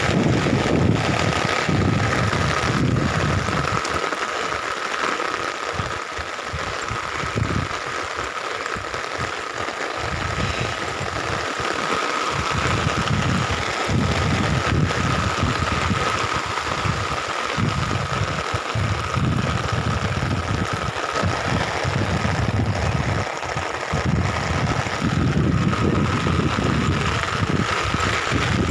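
Heavy rain pattering on an umbrella held overhead, with wind buffeting the microphone in low rumbles that come and go.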